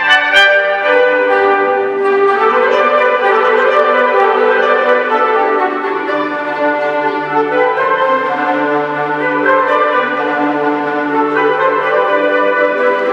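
Concert wind band playing: clarinets, saxophones, trumpets and other brass holding slow, sustained chords, with a couple of sharp percussion strokes right at the start.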